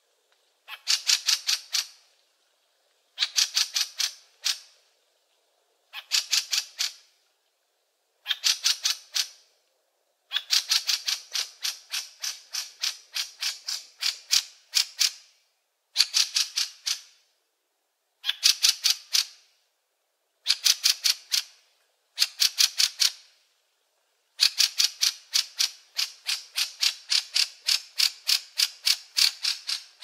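Fieldfare giving its harsh, rattling chatter: rapid 'chack' notes, about ten a second, in bursts of one to two seconds with short pauses between. The longest runs come around the middle and near the end.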